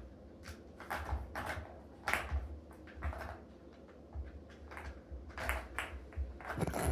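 Balls clicking and rattling around the track of a cat's ball-track toy, in irregular bursts of clatter with scattered single clicks; the loudest burst comes near the end.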